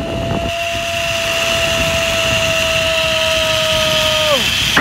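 Rush of air on a zipwire ride, with a steady high whine that holds for about four seconds, then slides down in pitch and stops near the end.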